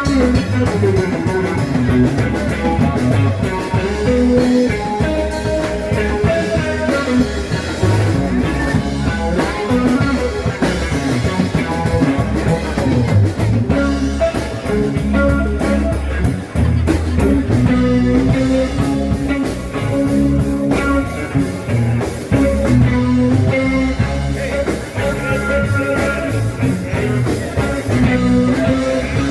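Live rock band playing an instrumental passage, guitar over a drum kit.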